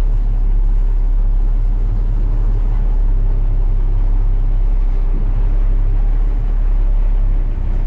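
Diesel engine of a heavy farm vehicle running steadily under way, a loud, even low drone.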